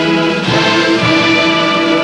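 Orchestral music with strings, a strong note held throughout.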